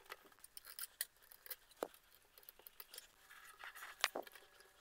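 Faint scattered clicks and taps of 3D-printed plastic gripper parts being handled and fitted against the robot arm's joint, the sharpest click a little after four seconds in.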